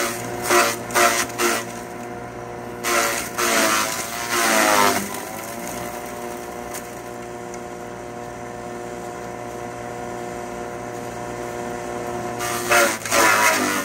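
Forage chopper running steadily with a pitched hum, with three spells of loud shredding as elephant grass is fed through it: short chops near the start, a longer stretch about three to five seconds in, and another near the end. The motor's pitch sags under the load while it chops.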